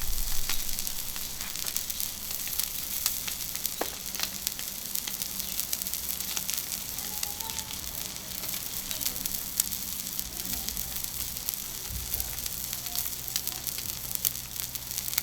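Beef steak sizzling and crackling steadily on a hot iron griddle.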